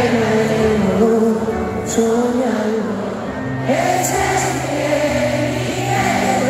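Live piano ballad: sustained piano and low accompaniment under a sung melody, in a large arena.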